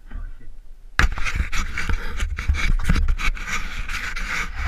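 Loud scraping and rustling noise right at a helmet-mounted GoPro's microphone, with a low rumble and many short scratchy clicks, starting about a second in.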